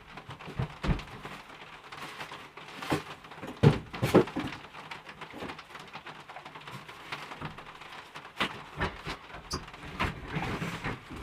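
Scattered light knocks and short rustles of small objects and packaging being handled on a table, with a couple of sharper knocks about four seconds in.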